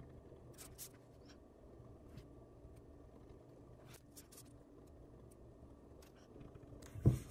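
Faint rustling and light ticks of sticker sheets and paper being handled while a sticker is peeled off and placed on a planner page. About seven seconds in comes a single dull thump, the loudest sound.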